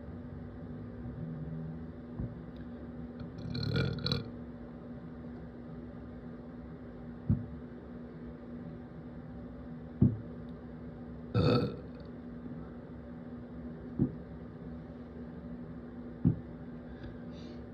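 A person burping from the carbonation of Sparkling Ice sparkling water: two longer burps, about four and about eleven and a half seconds in, with several short low blips between them.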